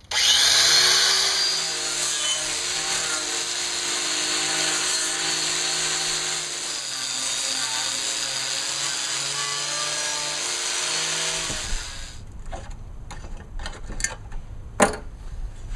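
Electric angle grinder with a wire wheel starting up with a short rising whine and running steadily as it scours a rusty steel strip, then shutting off about eleven seconds in. After it, a few knocks and clicks as the strip is handled, one sharp click near the end.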